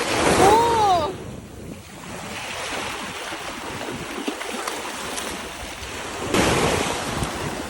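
Ocean surf washing on a beach, with wind buffeting the microphone; a wave surges loudly in the first second and again about six seconds in. A short cry that rises and falls in pitch sounds over the first surge.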